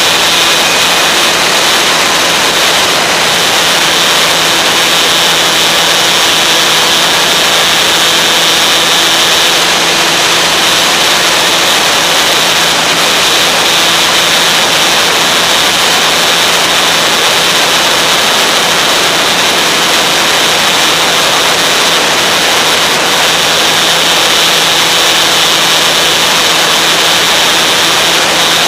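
Onboard sound of a Visionaire RC aerobatic plane in flight: a steady rush of air over the on-board camera's microphone, with the drone of its electric motor and propeller running at a constant pitch underneath.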